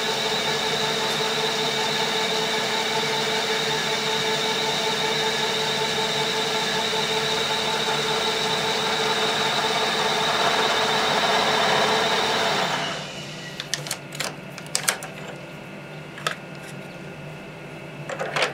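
Milling machine spindle running after a rigid-tapping pass, a steady loud whine that stops abruptly about 13 seconds in. Afterwards a few light clicks and knocks.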